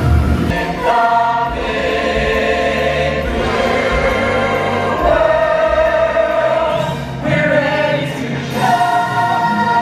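Music with a choir singing long held notes, in phrases that change every couple of seconds.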